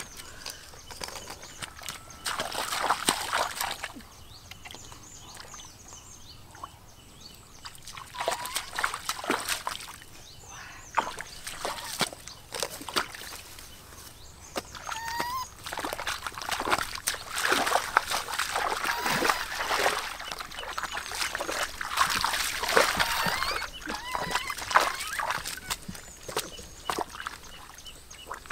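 Bare feet wading in a shallow muddy pond and hands sloshing and splashing in the water, in irregular bursts. A quieter spell comes about four to eight seconds in.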